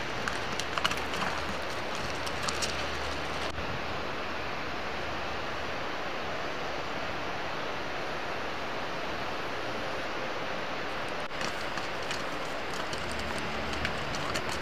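Steady rushing of a white-water mountain stream, cut in sharply about three seconds in and cut off sharply near eleven seconds. Before and after it, mule hooves clatter on the rocky trail against a low wind rumble.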